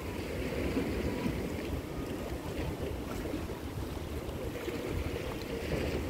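Seaside ambience: a steady rush of wind and sea water, with wind rumbling on the microphone.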